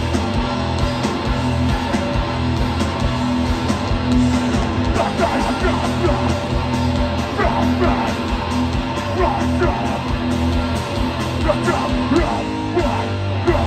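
Hardcore punk band playing live at full volume: distorted electric guitars, bass and fast, heavy drumming, with shouted vocals over the top.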